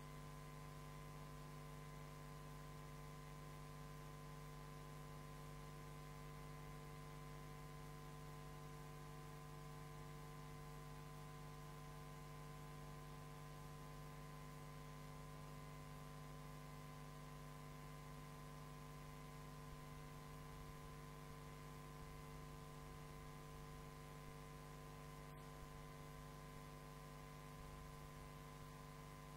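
Near silence, apart from a steady electrical mains hum: several unchanging tones with a faint hiss above them.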